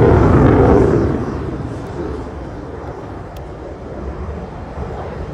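Eurofighter Typhoon's twin Eurojet EJ200 turbofans running at taxi power. The jet noise is loud for about the first second, then drops to a lower, steady level.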